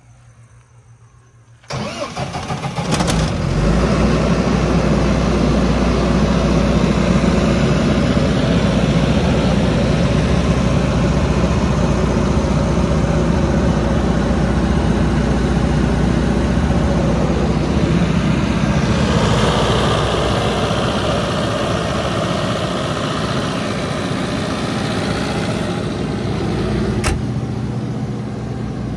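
Atlas Copco QAS90 generator's diesel engine starting: a short crank a little under two seconds in, then the engine catches and runs at a steady speed. Near the end comes a single sharp knock, after which the engine sounds somewhat quieter.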